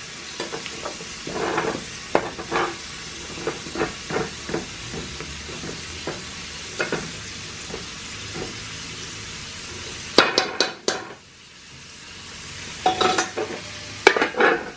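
A metal spoon stirring and scraping jambalaya rice in a large aluminium pot, over a steady sizzle from the pot. A cluster of louder metal knocks comes about ten seconds in, and there are clanks near the end as the aluminium lid goes back on the pot.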